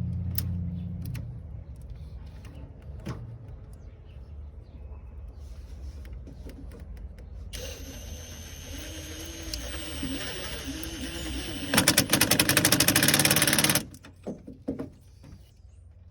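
Power drill running for about four seconds, its motor speed rising and falling, then a louder fast rattle for about two seconds as it drills or drives screws. A low hum fades out in the first second.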